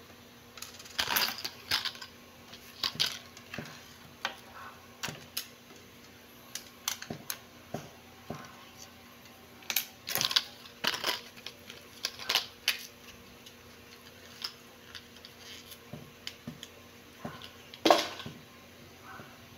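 Irregular light clicks and metallic clinks of small hard objects being handled, with the loudest single clink near the end.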